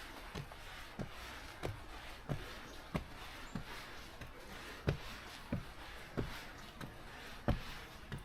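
Footsteps of a person walking at a steady pace on a path, about three steps every two seconds, over a steady outdoor background hiss.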